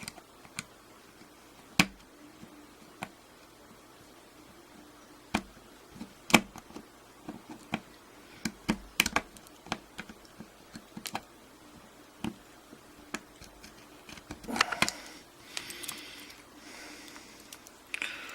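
Pliers working a retaining clip off a half euro lock cylinder: irregular sharp metallic clicks and clinks, with a stretch of scraping and rattling about three-quarters of the way through.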